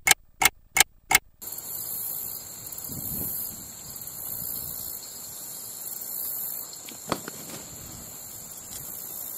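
A clock-ticking sound effect, about three ticks a second, stops a little over a second in. Then a steady, high-pitched chirring of insects goes on, with a single click about seven seconds in.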